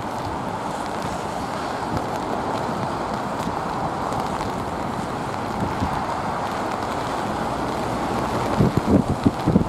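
Twin-engine widebody jet airliner landing in heavy rain: a steady rushing of jet engine noise mixed with rain and wind. Near the end, wind gusts buffet the microphone in low, uneven thumps.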